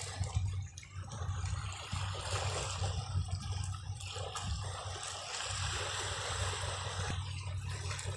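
Small sea waves washing and trickling among shoreline rocks, a shifting watery rush over a steady low rumble.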